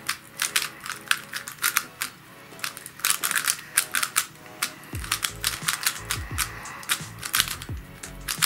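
Rapid plastic clicking and clacking of a DaYan ZhanChi 2018 3x3 speedcube being turned fast by hand, a non-magnetic cube used straight out of the box, over quiet background music.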